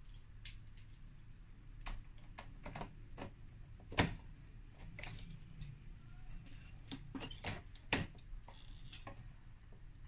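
Scattered light clicks and taps of hand tools and parts being handled while repairing a refrigerator door, irregular, the sharpest about four seconds in and again at eight seconds.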